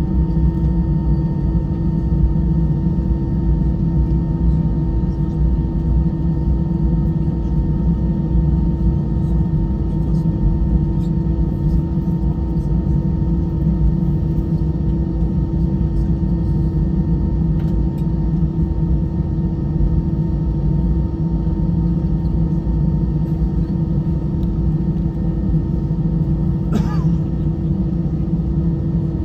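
Steady cabin rumble inside an Airbus A320, its engines running with a constant hum over the rumble. A brief high squeak about 27 seconds in.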